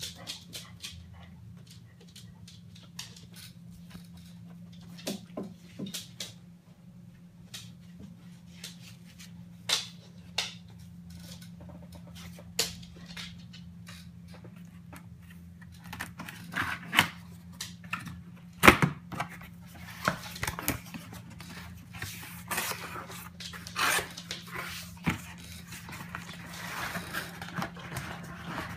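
Handling noise from a cardboard box: scattered light clicks and taps that grow denser in the second half, with one louder click about two-thirds of the way in, over a steady low hum.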